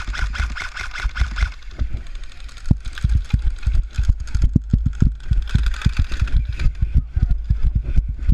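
Footsteps and gear knocking against a body-worn action camera: rapid, irregular low thumps with some rustling.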